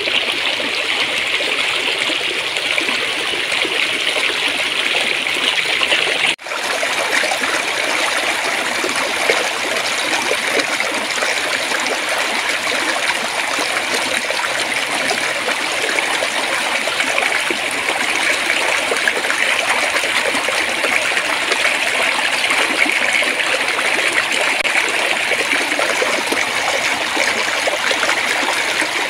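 Small stream of flowing water babbling steadily, with a momentary dropout about six seconds in.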